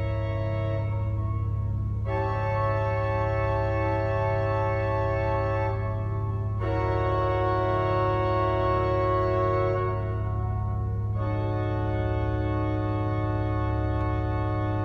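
Church pipe organ playing slow, sustained chords over a low pedal note held throughout. The chords change about two, six and a half, and eleven seconds in.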